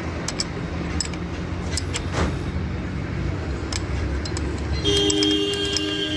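Sharp metallic clicks and taps over a steady low rumble. From about five seconds in, a held horn-like tone with several steady pitches sounds for about two seconds.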